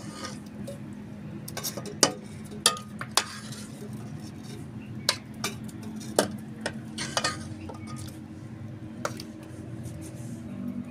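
A spoon clinking and scraping against a cooking pot and a plate while chicken curry is ladled out, in a string of separate sharp clinks. A steady low hum runs beneath.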